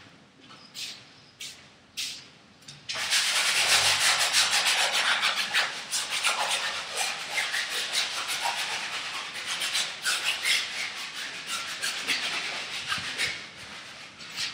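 Rapid, scratchy rubbing strokes of a hand-held tool working paint across a large stretched canvas, starting about three seconds in and running until near the end. Before it, a few footsteps and light taps on the hard floor.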